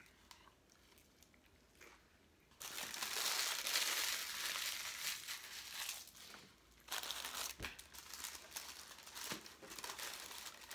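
Paper taco wrappers and sauce packets crinkling and rustling as they are handled. It starts about two and a half seconds in, pauses briefly near seven seconds, then carries on.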